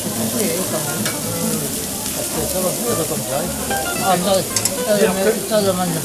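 Meat sizzling on a large barbecue grill, a steady hiss, with pieces being turned with long forks and tongs, against a murmur of voices.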